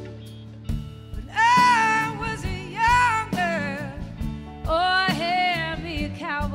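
A woman singing long held notes with a wide vibrato in three phrases, over electric guitar.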